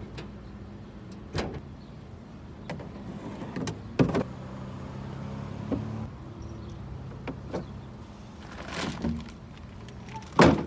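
Bags and a plastic tub being handled and set down in a pickup truck bed: scattered knocks and thumps, the loudest near the end, over a low steady hum.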